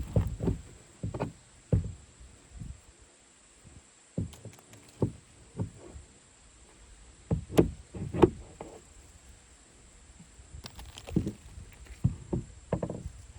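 Irregular knocks and thuds from tearing off asphalt shingles on a mobile home roof, as old roofing is pried up and dropped. There are single knocks with pauses between them, two louder ones past the middle, and a run of quicker knocks near the end.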